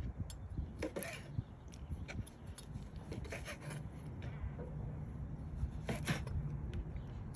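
Kitchen knife slicing boiled pork intestine on a plastic cutting board: soft, irregular taps and scrapes as the blade meets the board, over a steady low background rumble.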